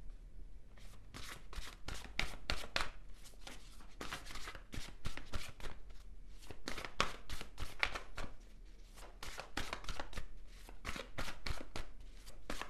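A deck of tarot cards being shuffled by hand: many quick, irregular card snaps and flicks.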